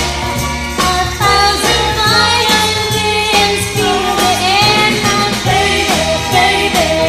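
Background music with a steady beat and a melody line over it.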